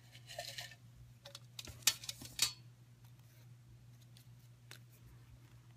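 Folded paper slips rustling and clicking against a small metal pail as a hand rummages through them, then a paper slip crinkling as it is unfolded. A handful of short crinkles in the first two and a half seconds, then only a faint hum.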